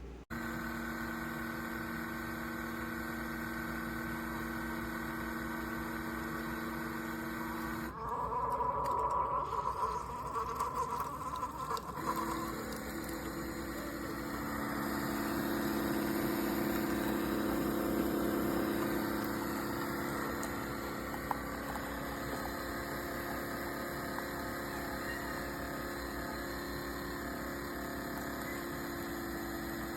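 A Keurig K-Compact single-serve coffee maker brewing, its water pump humming steadily. About eight seconds in comes a louder, irregular stretch of a few seconds, then the steady hum returns. The owner calls it a normal sound.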